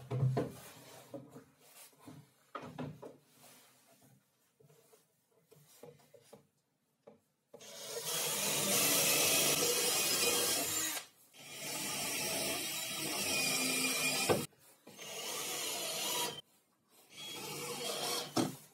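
Cordless drill boring into a plywood sled base, in four bursts of a few seconds each over the second half, wood chips spraying. Before that, a wooden knock at the start as a strip of wood is set down, then light handling.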